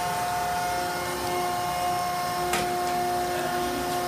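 Steady hum of the apple press's hydraulic pump motor running, with a constant whine, and a single click about two and a half seconds in.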